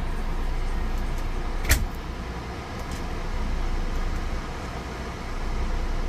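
Tosot 16,000 BTU ductless RV air conditioner running on turbo: a steady rush of fan air over a low hum, with one sharp click a little under two seconds in.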